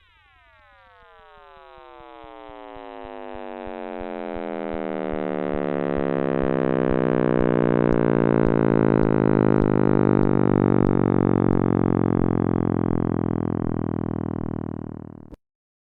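Synthesized 'sound of space' tone: a dense stack of electronic tones all sliding slowly downward in pitch together, swelling louder over the first several seconds, then cutting off abruptly near the end.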